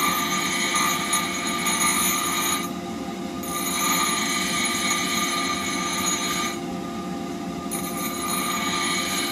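Bench grinder running with a steady hum while a steel blade is held against its spinning wheel, giving a continuous high grinding hiss. Twice, about three seconds in and again near seven seconds, the blade comes off the wheel and only the motor's hum is left for about a second before grinding resumes.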